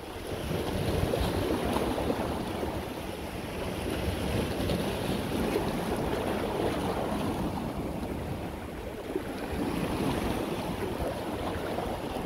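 Sea waves washing on the shore, with wind rumbling on the microphone; a steady rush that swells and eases slowly.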